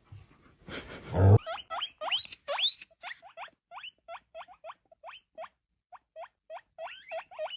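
A small animal squeaking over and over in short rising squeaks, about three or four a second, with a few louder, higher-pitched ones early on. A brief rustling burst comes just before the squeaks start.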